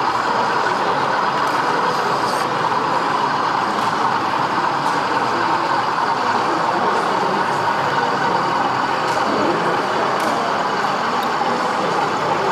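Steady diesel engine sound from a model diesel locomotive running on an OO gauge layout, hauling a train of tank wagons.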